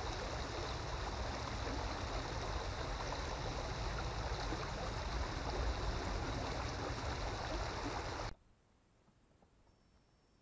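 Steady rushing of the flowing water in an irrigation ditch, which cuts off abruptly about eight seconds in, leaving near silence.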